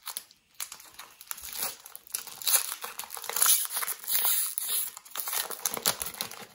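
Foil wrapper of a hockey card pack crinkling and tearing as it is peeled open by hand, an irregular run of crackles.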